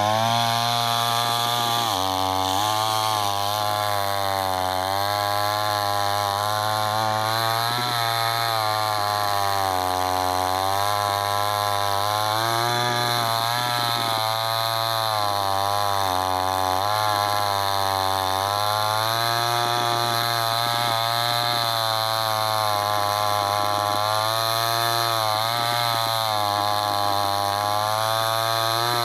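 Chainsaw running continuously while cutting wood, its pitch sagging and recovering again and again as the chain bites and frees up in the cut.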